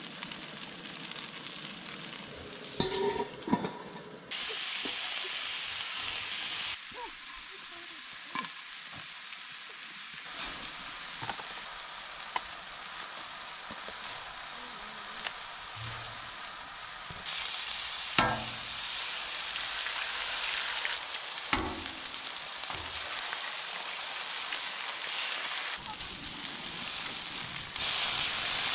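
Potatoes frying in a pan with a steady sizzle, which steps louder and quieter several times. A few sharp knocks of a utensil against the pan are heard, the loudest about 3, 18 and 21 seconds in.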